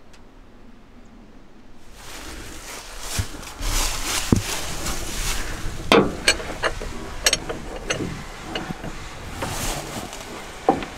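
Scattered metal clanks and knocks as someone works among the pipes on the underside of an old Kirovets K-700A tractor, over a steady rushing noise that comes in about two seconds in.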